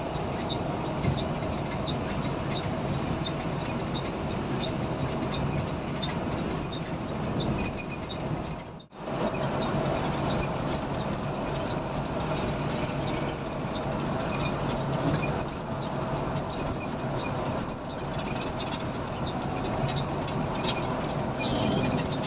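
Steady cabin noise of a coach bus cruising at highway speed: engine drone mixed with road and tyre rumble. A light, regular ticking runs through the first few seconds, and the sound drops out briefly about nine seconds in.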